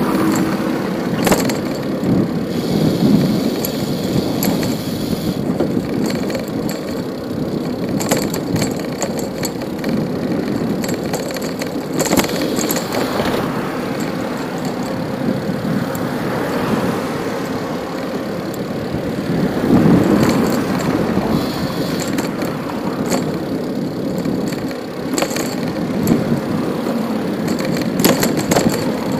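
City street traffic heard from a moving bicycle: a steady rush of cars, with one passing more loudly about two-thirds of the way in, and sharp clicks and rattles now and then.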